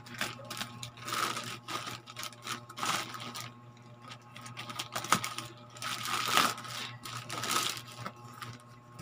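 A plastic courier pouch being handled and cut open with scissors: irregular crinkling rustles and snips over a steady low hum.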